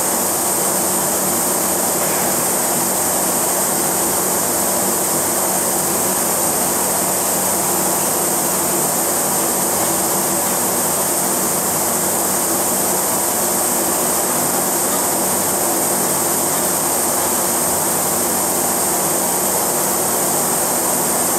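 Steady mechanical hum with a high hiss from a running robotic pick-and-place cell: a Fanuc M-1iA delta robot tracking and picking candies from a rotating dial. No single pick or impact stands out above the even drone.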